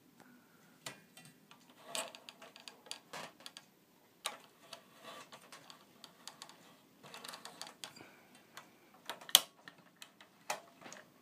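Irregular light clicks and taps of hand-handling noise, loudest about nine seconds in.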